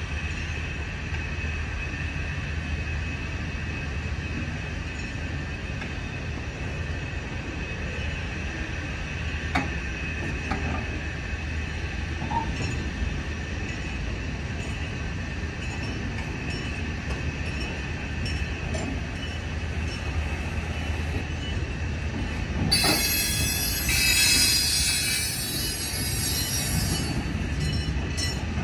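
Freight cars of a slow train rolling over a grade crossing: low wheel rumble with steady squealing from the wheels and a few scattered clanks. Near the end a loud, high-pitched screech rises for a few seconds, then drops back.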